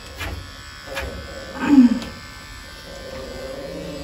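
Cordless electric pet clippers running with a steady buzz as they shave the fur off a golden retriever's foreleg. Just under two seconds in, a short, louder low sound stands out over the buzz.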